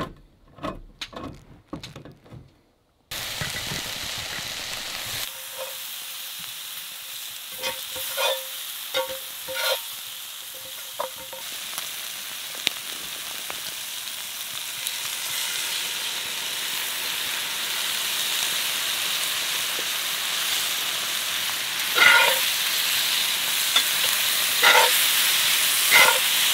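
A few clicks of a hand can opener working around a can, then boneless rib pieces sizzling steadily in a cast-iron skillet over a campfire, with a metal spatula scraping and stirring in the pan several times.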